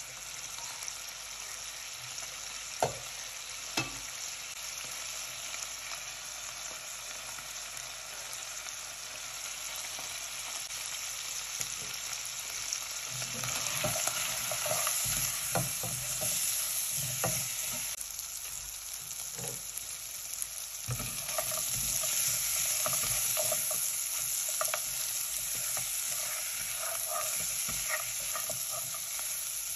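Mutton pieces sizzling in oil in a non-stick pot, with a steady hiss throughout. Two sharp clicks come a few seconds in. From about halfway on, a silicone spatula scrapes and knocks against the pot as the meat is stirred, and the sizzling grows louder.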